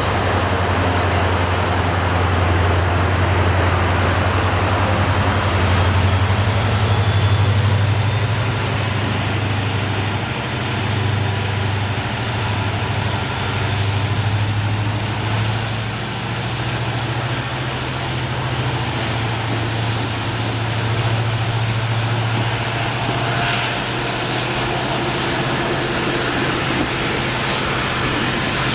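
EMD two-stroke diesel engine of a WDP4D locomotive running under load as the train gets going, its deep engine note and high turbocharger whine stepping up in pitch a few times as the engine notches up.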